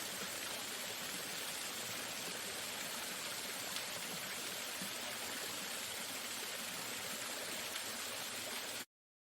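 Waterfall rushing in a steady, even wash of falling water, cutting off suddenly near the end.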